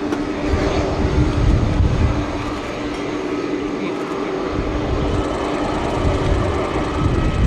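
Boeing 747-400F freighter's four jet engines running at low power as it taxis, a steady whine over a low rumble that swells and fades.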